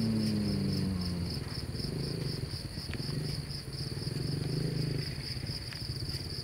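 Insects chirping steadily, a high, evenly pulsed trill that runs on without a break. Underneath sits a louder low hum, with a falling tone in the first second or so.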